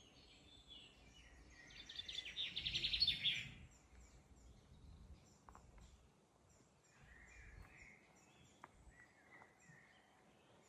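Woodland birds singing, with one loud rapid trill that builds from about two seconds in and stops a second and a half later, then softer high chirps and short whistled notes.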